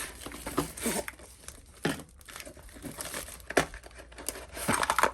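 Packaging being handled and opened: irregular crinkling, rustling and tearing, with a denser stretch of crackling near the end.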